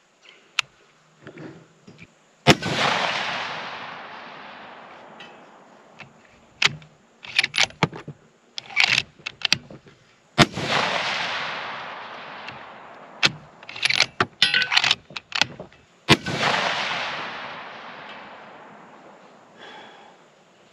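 Three rifle shots from a 6.5 Creedmoor bolt-action rifle firing Hornady Match 140-grain ammunition, spaced about eight and six seconds apart, each report trailing off over a few seconds. Between the shots come quick runs of metallic clicks and knocks, the bolt being worked to eject the spent case and chamber the next round.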